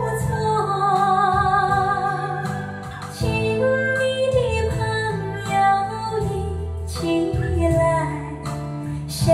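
Recorded music with a woman singing with vibrato over a bass accompaniment, played back through JM Lab Mezzo Utopia loudspeakers driven by a Splendid Audio KL08 vacuum-tube integrated amplifier, heard in the listening room. The music dips briefly about three seconds in.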